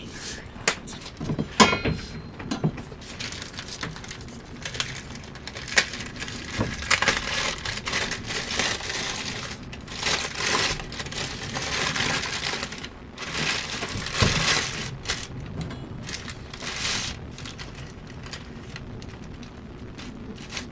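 Crunching of Swedish hard tack (crispbread), in a long irregular run of crisp crackles and sharp cracks.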